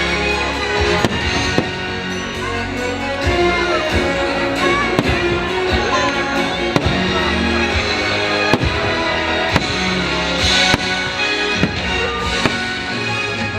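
Fireworks show soundtrack music playing, with sharp firework bangs every second or two over it.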